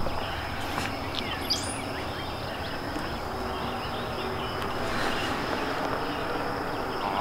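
Outdoor ambience: a steady high-pitched insect drone, with a bird's short chirping call about a second and a half in and a few light clicks.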